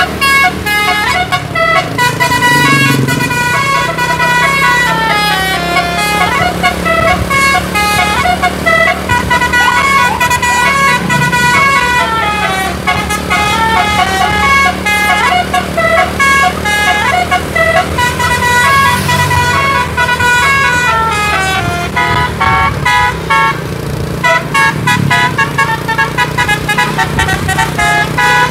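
A tour bus's telolet musical air horn, driven by a DAV horn module, playing long runs of rapid stepped notes that climb and fall in quick melodic phrases, with a steady low hum underneath.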